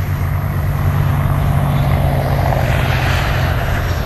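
Airliner taking off: a steady low engine drone with a rushing noise that swells about two to three seconds in.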